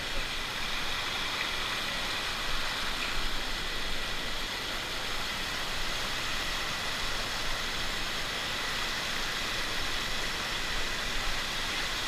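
Waterfall pouring over the rock lip just below, a steady rushing hiss of falling water.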